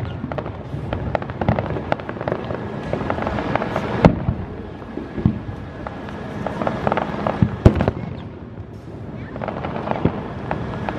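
Aerial firework shells bursting in quick succession: many sharp bangs with crackling in between, the loudest booms about four seconds in and again near eight seconds.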